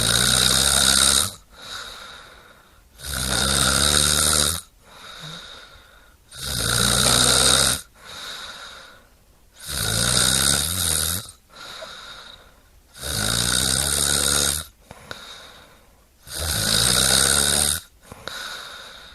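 A person snoring in a steady rhythm: six loud snores about every three seconds, each about a second and a half long, with a quieter breath between them.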